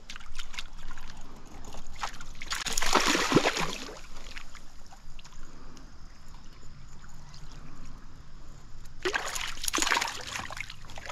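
Stream water trickling and splashing, with two louder splashes, one about two and a half seconds in and one near the end.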